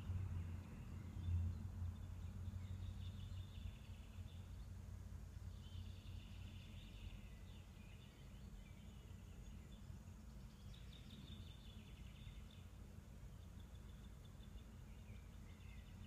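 Faint birdsong coming in several separate bouts of a few seconds each, over a low steady hum.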